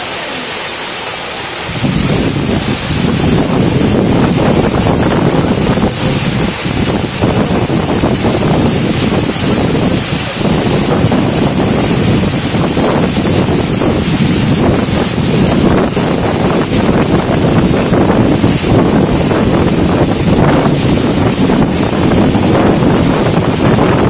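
First Falls waterfall rushing steadily. About two seconds in, a heavy low rumble of wind buffeting the microphone comes in suddenly and continues over the water.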